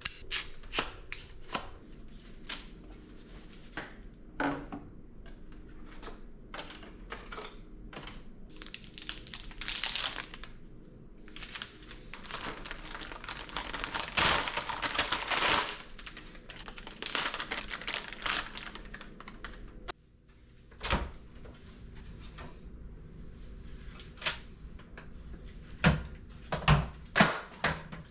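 Handling of packaging and gear: crinkling and tearing of wrapping, with scattered clicks and knocks, and longer stretches of rustling in the middle.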